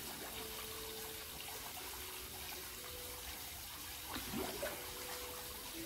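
Steady trickle and splash of running water in a garden koi pond.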